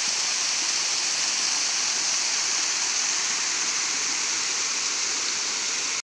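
A waterfall cascading in several strands over a steep rock face into a pool, making a steady, even rush of falling water.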